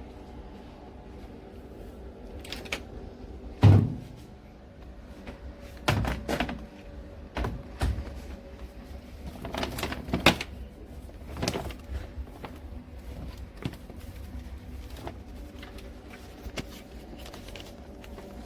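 A series of irregular knocks and clunks, the loudest about four seconds in, over a faint steady hum.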